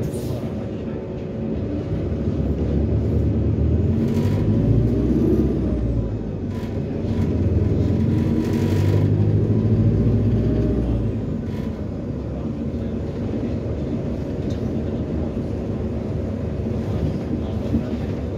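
Cummins ISBe diesel engine of an Autosan SanCity 9LE city bus with an Allison automatic gearbox, heard from inside the passenger cabin while driving. The engine note swells twice as the bus accelerates, about two and seven seconds in, then settles to a steadier cruise, with a couple of short hisses along the way.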